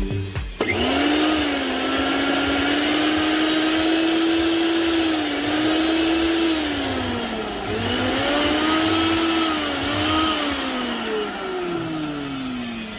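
Preethi mixer grinder's universal motor running, with its newly fitted armature, in a high whine. It starts about half a second in, drops in speed and picks up again midway, then winds down near the end.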